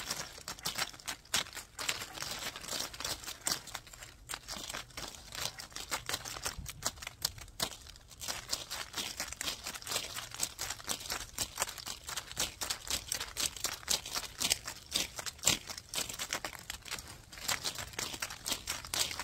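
Dense, irregular crackling and scratching from a brush rubbed and scraped right against the microphone, played as improvised noise, with a brief lull about eight seconds in.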